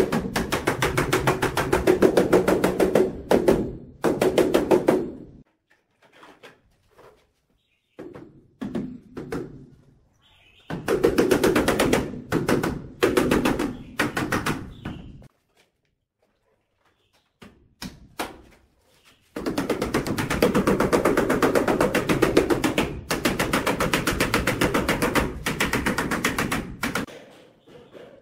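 Rubber mallet tapping a ceramic wall tile in quick, even runs of knocks to bed it into the adhesive, in several bursts a few seconds long with short pauses between them.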